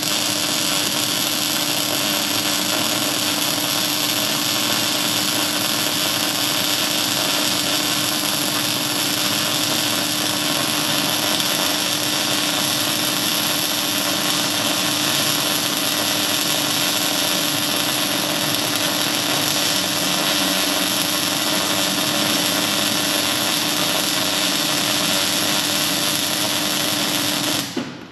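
Electric arc welding: one long continuous weld bead joining a hub to a steel plate sprocket, a steady hissing arc with a low hum that starts abruptly and cuts off near the end.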